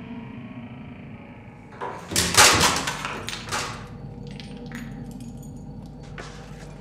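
Low steady droning, then about two seconds in a loud crash made of several heavy knocks in quick succession, followed by scattered lighter clicks and knocks.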